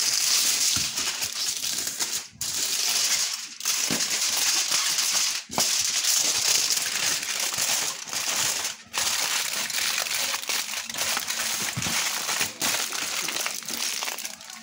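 Aluminium foil crinkling and crumpling as hands fold and press it around a marinated leg of lamb, with a few brief pauses between handfuls.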